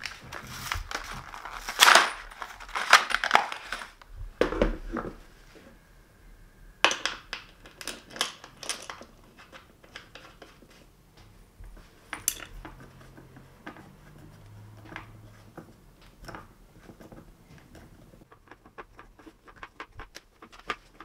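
Small metal screws and washers clinking and clattering as they are handled, then scattered clicks and scrapes as the armrest screws are driven into the office chair's plastic seat base with a hand screwdriver. The loudest clatter comes in the first few seconds.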